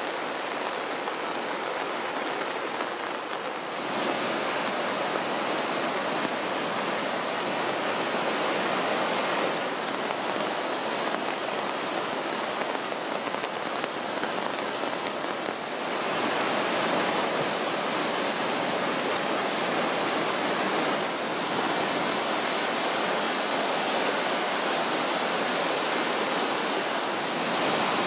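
Middle Fork Snoqualmie River in near-flood spate: fast, churning whitewater rushing steadily. The rush steps up abruptly a few times, first about four seconds in.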